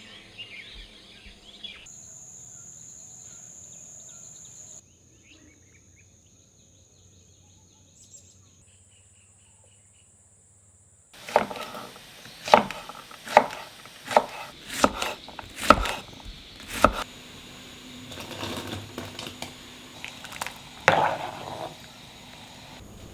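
A run of about ten sharp, loud knocks, roughly one every half second to a second, starting about halfway through and followed by one more near the end. Before them, faint bird chirps.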